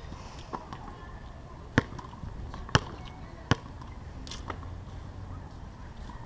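A basketball bouncing on a hard court: a few single, sharp bounces about a second apart, against a low steady outdoor background.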